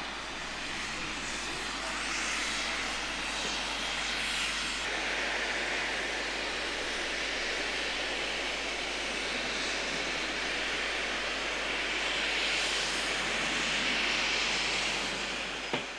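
Robert Stephenson steam locomotive Twizell venting steam in a steady, loud hiss, which stops abruptly near the end.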